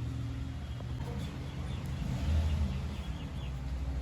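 Car engine running at idle: a steady low hum that swells briefly about two seconds in.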